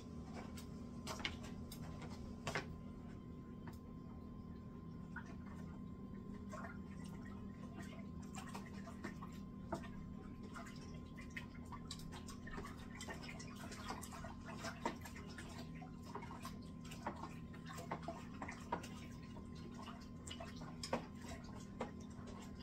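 Beer-kit wort being stirred with a long spoon in a plastic fermenting bucket: liquid swishing and dripping, with irregular light knocks of the spoon against the bucket. A steady low hum runs underneath.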